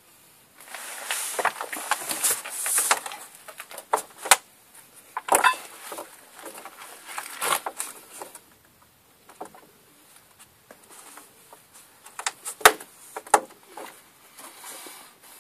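Irregular clicks, taps and short rustling sounds of hands handling metal parts while fitting the bolts of a clutch pressure plate.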